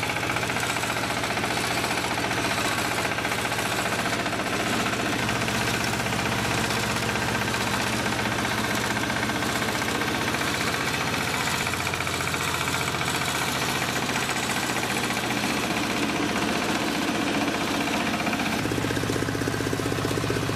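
Mini rice mill running, belt-driven by a diesel engine: the engine's fast, steady knocking together with the mill's clatter as rice and bran pour through it.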